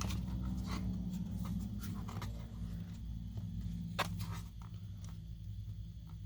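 Light clicks and scrapes of small plastic parts being handled as a tiny side mirror is pressed onto a 1/18 scale RC car's plastic body, over a low steady hum; one sharper click about four seconds in.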